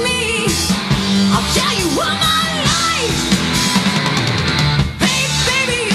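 A three-piece hard rock band playing live: a high sung lead vocal with sliding notes over electric bass, electric guitar and drums with cymbals. The band drops out for an instant about five seconds in, then comes straight back.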